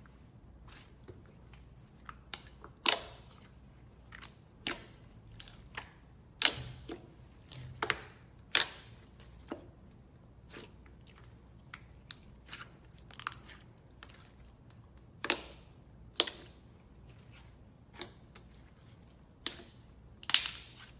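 Glossy slime being squeezed and poked by hand, giving irregular sharp pops and clicks, about one a second.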